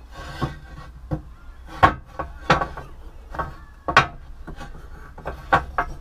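Metal tongs knocking and scraping against an ingot mould as it is tipped over to release a freshly cast copper bar: a series of irregular sharp knocks with rubbing between them.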